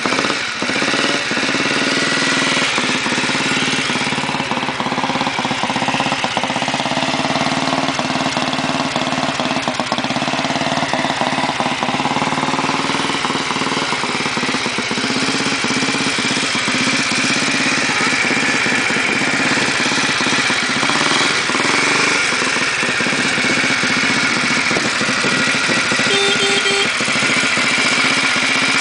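Junak motorcycle's single-cylinder four-stroke engine idling steadily.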